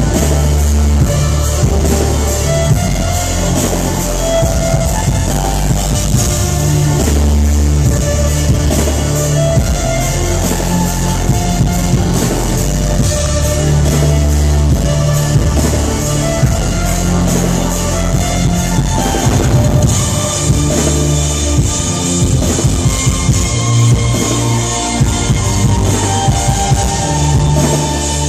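Loud live concert music heard from the audience through the venue's sound system: a driving drum beat over deep, sustained bass notes. The arrangement shifts about two-thirds of the way through.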